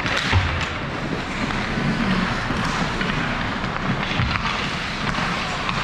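Ice hockey play in an indoor rink: skate blades scraping and carving the ice, with a few sharp clacks of sticks and puck.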